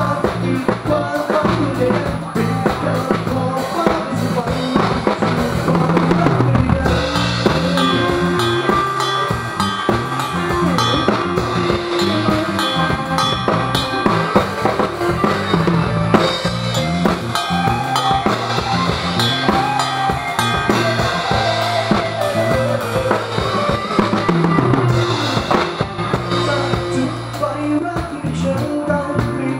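Drum kit played live, heard from right beside the kit, with kick, snare and cymbals over a band's steady bass line. From about seven seconds in, sustained higher instrument notes join the mix.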